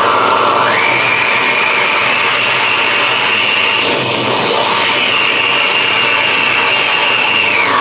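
Harsh electronic noise music: a loud, dense wall of noise with a whining tone that jumps up in pitch just under a second in, holds with a short dip midway, and slides back down near the end.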